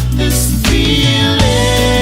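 Background music: a song with a steady bass line and a held sung note.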